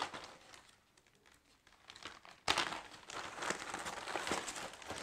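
Clear plastic bag of parts crinkling and rustling as it is handled, starting suddenly about two and a half seconds in after a short quiet stretch.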